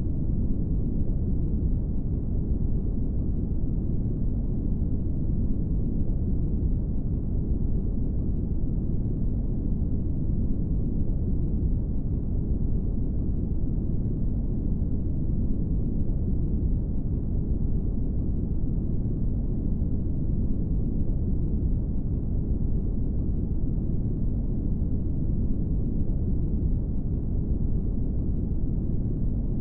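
Brown noise: a steady, deep hiss, strongest at the low end and dying away toward the treble, with no change or break.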